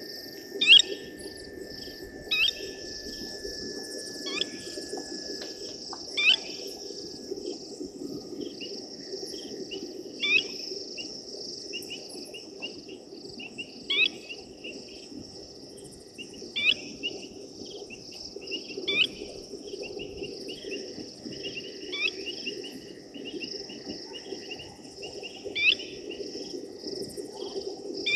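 Night insect chorus trilling steadily, with a short, sharp high call repeated about every two seconds.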